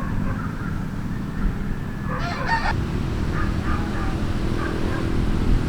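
Strong wind buffeting, a steady low rumble, with a short honk-like call about two seconds in and a few faint shorter calls after it.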